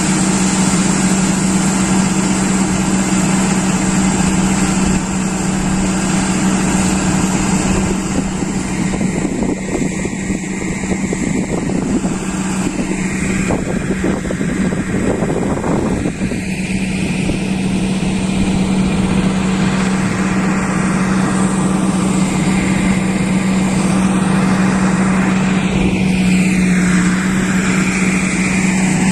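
Tractor engine running steadily under way, a constant loud drone with an even pitch throughout.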